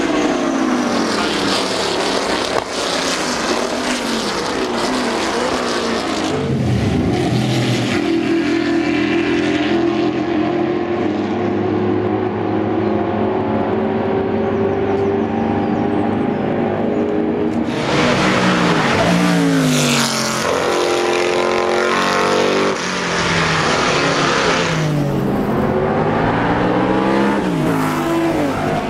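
Lola T70 Mk3B race cars with 5-litre Chevrolet V8s passing at speed one after another. Each engine note drops in pitch as the car goes by.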